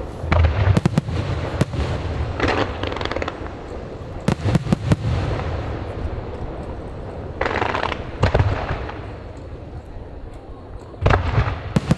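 Aerial display fireworks going off: sharp booms of shells bursting, in clusters near the start, around four seconds in and near the end, with stretches of crackling from crackle-effect shells in between.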